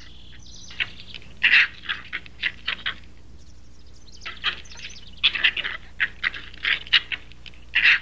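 Fox pups squeaking and chirping as they tussle at play: short high calls in quick bunches, several times over, over a faint steady hum.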